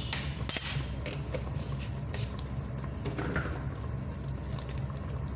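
Curry sauce simmering in a steel pot on a gas stove, over a steady low hum, with a few light clinks in the first second.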